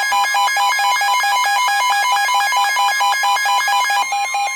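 Emergency alert receiver alarm beeping rapidly and evenly, about seven beeps a second. About four seconds in, a steady alert tone joins the beeping, the attention signal that comes before the next severe thunderstorm warning.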